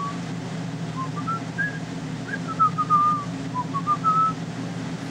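A person whistling a tune: short gliding notes in loose phrases, over a steady low hum.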